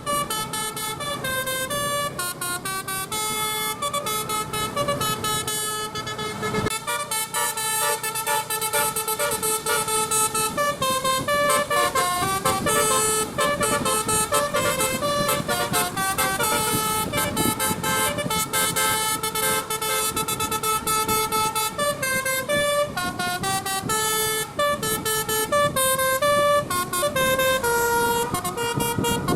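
Indonesian bus 'telolet basuri' melodic horn playing a tune through its roof-mounted horn trumpets: a continuous run of horn notes stepping up and down in pitch.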